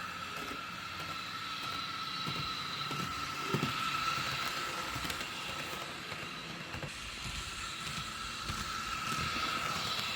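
Piko HO-scale Class 442 EMU model train running steadily along the track: an even whine with a constant pitch, over light wheel-and-rail noise with the odd faint click.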